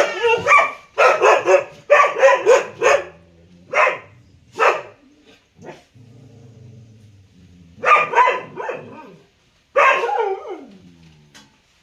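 A dog barking: a quick run of barks, then two single barks, a quieter spell, and two more barks near the end, the last sliding down in pitch.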